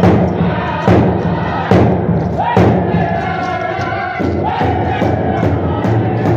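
Powwow drum group singing in unison over steady, even beats on a large shared drum. The high voices slide down from each held note.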